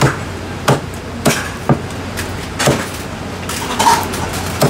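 Cleaver chopping a roast duck on a thick wooden chopping block: about seven sharp chops, unevenly spaced.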